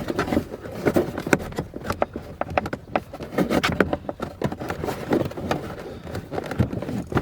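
Irregular scraping, clicking and rustling of wire and plastic as a wire is fished through a tight gap behind a pickup truck's interior panels.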